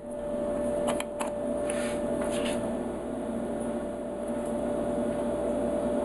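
A few light clicks and scrapes as the plastic and metal housing of a small electric air-horn compressor is twisted apart by hand, over a steady background hum.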